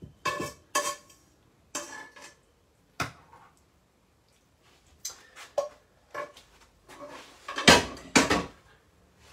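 Kitchen pan and metal utensil clattering: a string of separate knocks and clinks as a metal spoon scrapes out a speckled coated pan over a ceramic bowl, with two louder clatters near the end.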